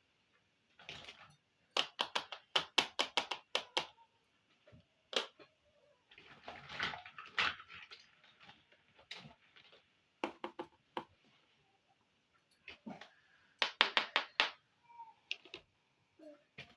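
Small plastic miniature toy kitchen pieces being handled: rapid runs of sharp clicks and taps, with stretches of scraping and rustling in between.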